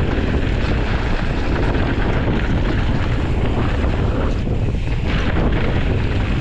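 Wind buffeting an action camera's microphone while a mountain bike descends a loose dirt trail at speed, with a steady rush of tyre and trail noise.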